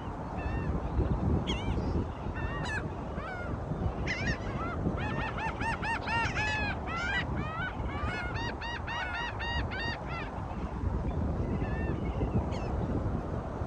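A flock of birds calling in quick, repeated honking calls, thickest through the middle, over a steady low rush of wind or surf.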